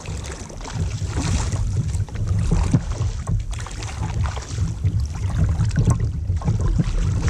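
Wind buffeting the microphone on a kayak, with water splashing and small knocks against the hull as a small hooked bass is brought alongside.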